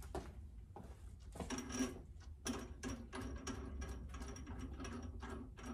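Drill press chuck being turned with a chuck key, its gear teeth clicking in a quick run of short strokes, starting about a second and a half in and going on to the end.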